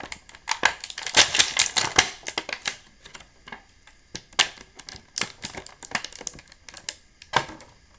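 Clear plastic action-figure packaging crinkling and crackling as it is handled and pulled loose. The crackles come thick and fast for the first few seconds, then in scattered snaps.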